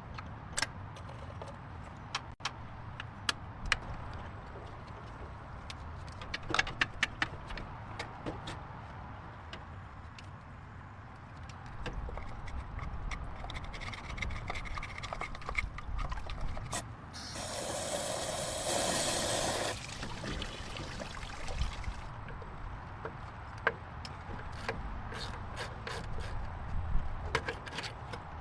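Workshop sounds of hands-on car work: scattered clicks and knocks, with one loud hiss of air or spray lasting about two and a half seconds roughly two-thirds of the way through.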